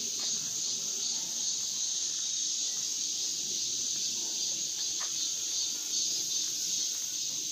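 Steady, high-pitched drone of a chorus of insects, unbroken and unchanging.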